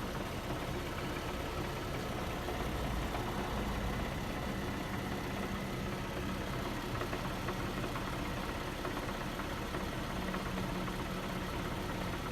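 2008 Infiniti G37's 3.7-litre V6 idling steadily with a rattle, which the owner thinks may be the catalytic converters.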